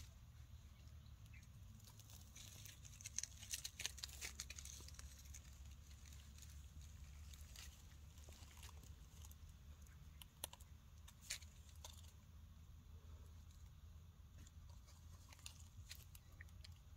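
Near silence with faint crackles and rustles of dry leaves and grit, a short run of them about two to five seconds in and a few single clicks later, over a steady low rumble.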